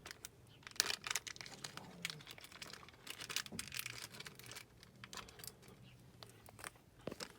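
Packaging of new replacement lift bolts being torn open and crinkled by hand: a run of irregular crackles and rustles.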